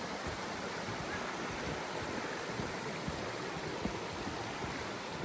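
Steady rush of stream water running over rocks, an even hiss with no break.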